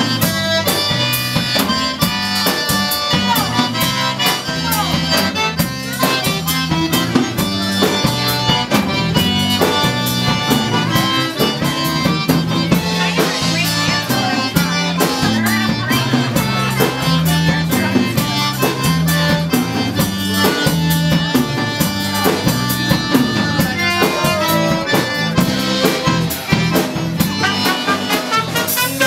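Live Cajun dance music from a band: a diatonic button accordion leads over an electric bass line and drum kit with a steady, even beat.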